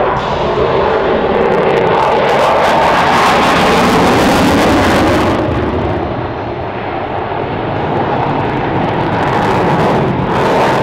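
F-16 Fighting Falcon jet fighter in flight, its Pratt & Whitney F100 turbofan making a loud rushing jet noise. The noise swells over the first few seconds, eases about six seconds in, and builds again toward the end.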